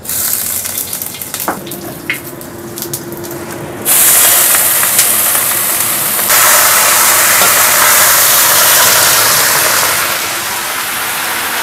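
Bok choy stir-frying in hot oil: a crackling sizzle that jumps to a loud, steady sizzle about four seconds in and eases slightly near the end.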